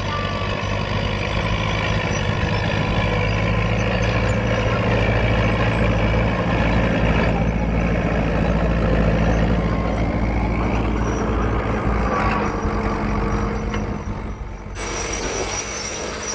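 Vintage Fiat crawler tractor's diesel engine running steadily as it pulls a plough. It grows louder as the tractor passes close, then fades as it moves away.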